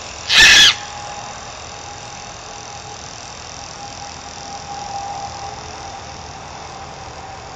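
Small electric motor of a toy helicopter whining steadily in flight, a thin even tone that swells slightly midway. A brief loud squeal about half a second in.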